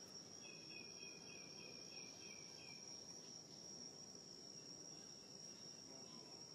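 Faint, steady, high-pitched insect drone in forest. A short run of about six quick chirps sounds in the first three seconds.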